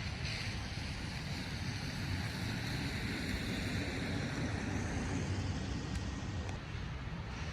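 Steady rumble and hiss of a car being driven, road and engine noise with no sharp events.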